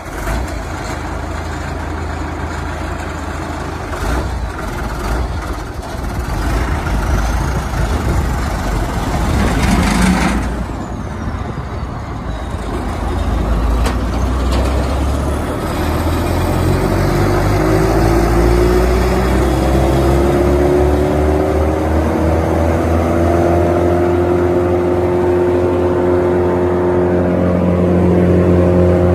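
Engine of a Morbark Hurricane 2400XL drum chipper running just after starting. About halfway in it is throttled up, and the engine and chipper drum wind up in a rising pitch, then settle into a steady higher whine at working speed.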